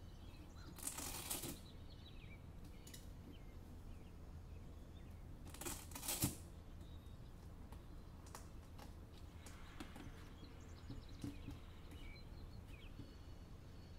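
Hook-and-loop strap on an Asics Gel Fratelli sneaker being peeled open, two short tearing rips about five seconds apart with light handling clicks between. Faint bird chirps in the background.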